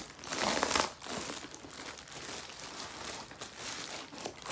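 Plastic poly mailer bag crinkling and rustling as it is pulled open and handled, loudest about half a second in.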